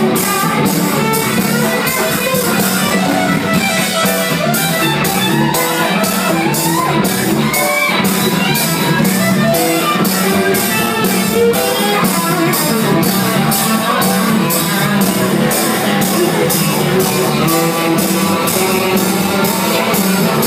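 A ska band playing live, with electric guitar and drum kit under a steady, even cymbal beat.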